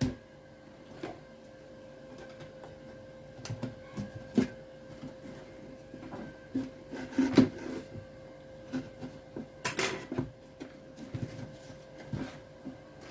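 Irregular knocks, clicks and scrapes of hands opening a home theatre speaker cabinet whose screws have been taken out, with a louder, short scrape or rattle about ten seconds in.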